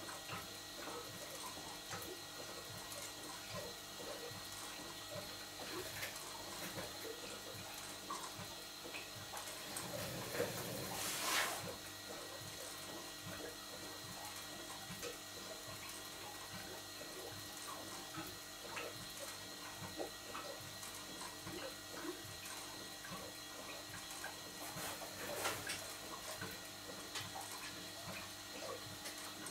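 Crankshaft-driven water pump of a 4½-inch scale model showman's engine gurgling as it returns water to the tank, because the pump bypass is open. Under it the running engine ticks lightly and steadily, and there is a brief louder hiss about eleven seconds in.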